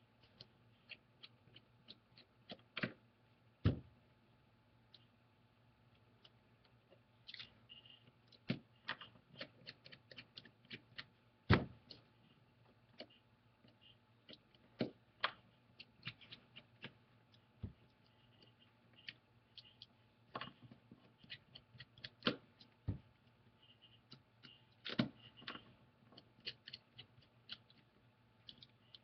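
Small screwdriver working screws out of a tablet's aluminium frame: scattered light clicks and ticks of metal on metal, with a couple of louder knocks.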